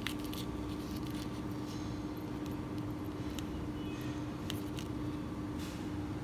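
A steady low hum with one constant tone, and a few faint clicks and rustles from fishing line and a small swivel being handled.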